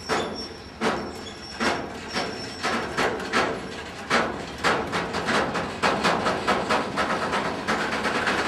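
SBB Shimmns telescopic-hood coil wagons rolling slowly past at close range, giving a run of sharp metallic clanks and knocks that come faster and closer together toward the end.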